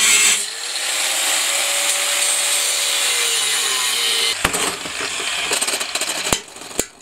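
Angle grinder working steel: a loud steady grinding hiss with the motor note sagging slightly under load for about four and a half seconds, then it stops and several sharp metal clanks and knocks follow as the parts are handled.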